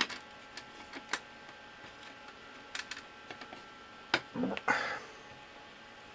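Scattered light clicks and taps of a screwdriver and small screws as a circuit board is unscrewed from a network switch's metal case, with a slightly louder scrape or knock about four seconds in.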